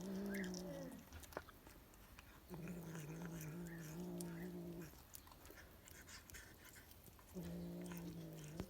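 Domestic cat growling over a chunk of meat in three long, steady, low growls, with small clicks of biting between them.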